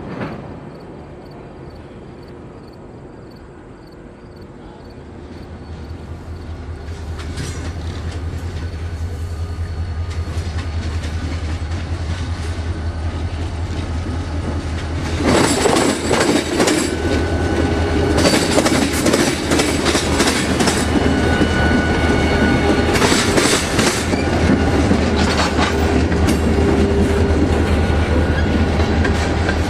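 The EMD 645 diesel engine of a locomotive grows steadily louder as it comes closer, with a low throb. About fifteen seconds in, wheels start clacking over rail joints and squealing now and then as the train passes close by.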